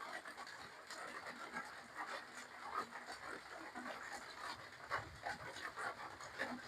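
Close-up wet chewing and lip-smacking of someone eating spicy seafood papaya salad with rice noodles, with breathing mixed in: many small irregular smacks and clicks.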